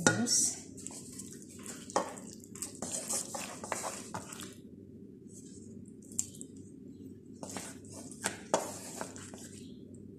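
Wooden spatulas scooping thick fish masala sauce out of a frying pan and dropping it onto rice in a pot: wet plops and squelches with light clacks of wood against the pan, in two spells of a few seconds each.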